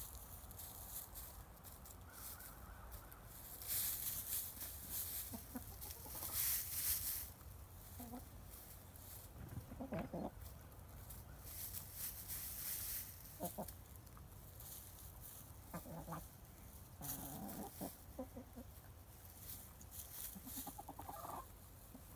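Buff Orpington hens giving short clucks every few seconds while they forage, over bursts of rustling hiss. The hiss is loudest a few seconds in.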